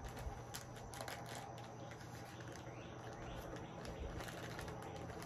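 Faint outdoor background with distant birds calling, and a few light clicks of small parts being handled.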